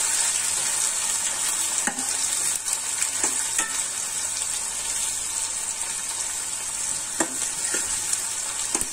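Sliced onions sizzling in hot mustard oil in a stainless steel pan, fried toward golden brown. A metal spatula stirs them, with a few sharp clinks against the pan.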